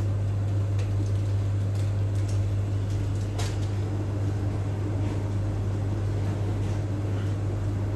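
A steady low electrical hum with a fainter fan-like rush, unchanging throughout. There is a faint click about three and a half seconds in.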